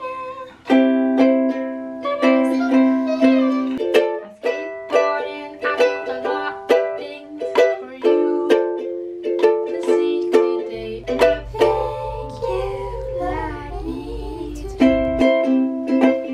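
A ukulele strummed in chords, with a woman singing along.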